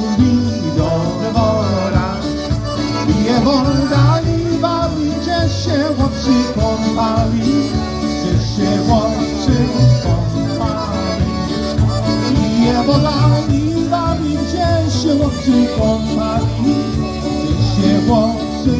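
Live polka band playing a polka, with a melody that has an accordion-like timbre over a steady bass beat.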